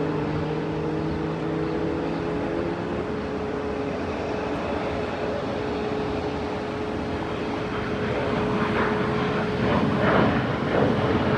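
Airliner engines running: a steady whine over a broad rumble, with the roar swelling over the last few seconds.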